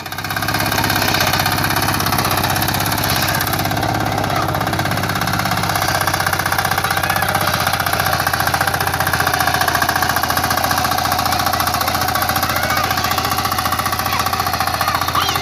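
Power weeder's small single-cylinder engine rising in speed within the first second, then running steadily under load with a rapid firing beat as its rotary tines churn through soil.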